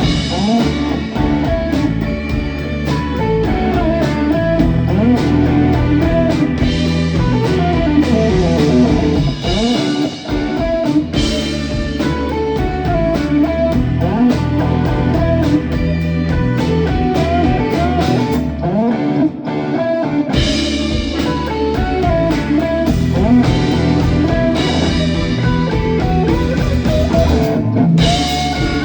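Live rock band playing an instrumental passage: a lead electric guitar with bending notes over bass and drums. About two-thirds of the way through, the bass and drums drop out briefly, then the full band comes back in.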